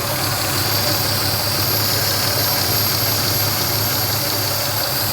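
1996 Toyota Camry V6 idling steadily with an even hiss over it, the sound the mechanic takes for a vacuum leak behind its misfire.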